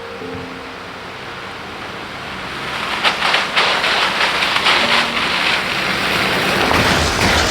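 Steady rain falling, growing heavier about three seconds in.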